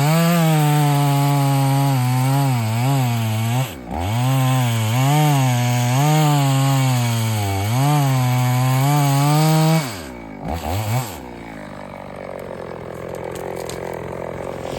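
EFCO two-stroke chainsaw running at high speed, its pitch rising and falling again and again. About ten seconds in it drops away, sputters briefly and stops.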